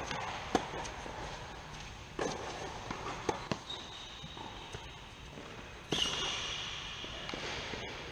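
Tennis ball struck by racquets and bouncing on an indoor hard court during a rally: a string of sharp hits a second or two apart, each echoing in the hall.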